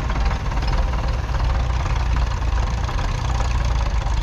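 1951 Nuffield Universal DM4's 3.4-litre four-cylinder diesel engine running steadily with a low, even chug.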